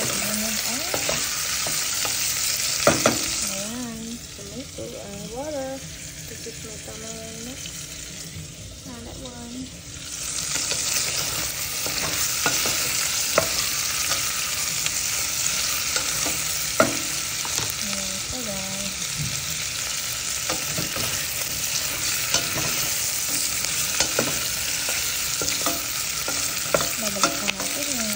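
Pork pieces and sliced onion sizzling as they sear in a stainless steel pot, stirred with a wooden spoon that scrapes and knocks against the pot now and then. The sizzle quiets for several seconds about four seconds in, then comes back.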